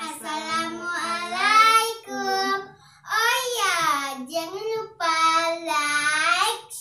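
A young girl singing in a high voice: a few long, drawn-out phrases with sliding pitch and short pauses between them.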